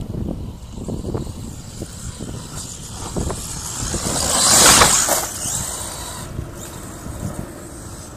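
Brushless electric RC truck driving through loose sand. Its noise swells to a loud hiss about four to five seconds in as it passes close, then fades.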